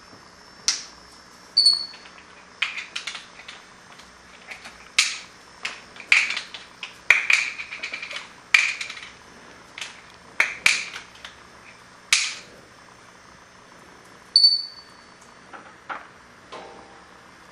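Plastic bottle cap clattering and skittering on a hard floor as an African grey parrot pecks and flips it with its beak: irregular sharp clicks and taps, some followed by a brief rattling ring. Twice, a short high peep.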